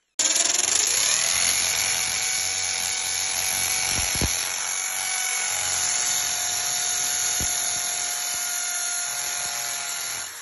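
Mac Allister electric hammer drill starting up with a rising whine that settles within about a second, then running steadily as its bit bores into a painted wall, and cutting off near the end.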